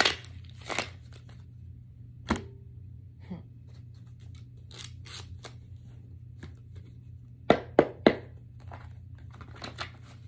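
Tarot cards being handled: short rustles and sharp taps as cards are shuffled and set down on a table. Three sharp taps come close together about three-quarters of the way through, over a steady low hum.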